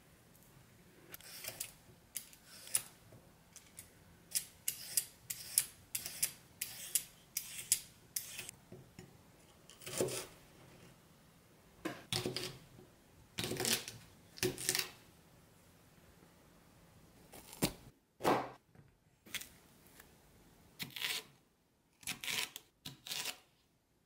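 Kitchen knife slicing purple asparagus and a yellow bell pepper on a wooden cutting board: crisp cuts and knocks of the blade on the board in irregular runs, with short pauses between them.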